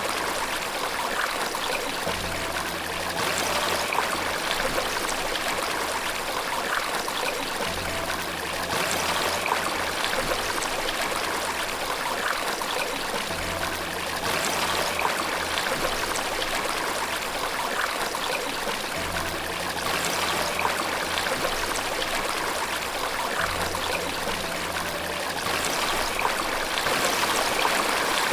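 Running water from a stream or waterfall, a steady rush and trickle that keeps an even level. A low hum-like tone comes in and fades out about every five to six seconds.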